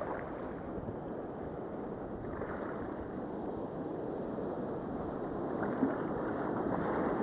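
Foamy whitewater from broken surf hissing and washing around a sea kayak's hull as it is paddled out through the waves, growing a little louder toward the end.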